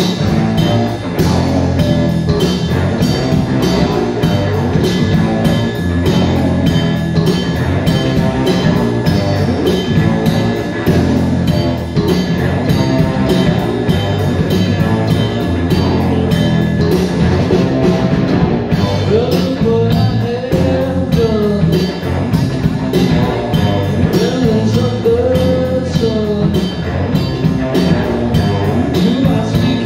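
Live rock band playing: electric guitar, bass guitar and drum kit, with a steady beat throughout.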